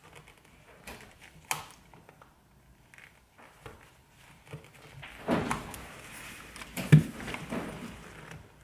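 Anker Soundcore Life Q35 ear pad's plastic clips being levered off the headphone housing with a dull table knife: scattered sharp clicks as the clips pop loose, with rubbing and scraping of knife and pad between them. The sharpest click comes about seven seconds in.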